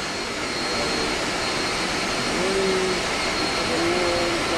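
Steady machinery noise of an air-conditioning chiller plant room, with the chiller units, compressors and pumps running, and a thin, steady high whine over it.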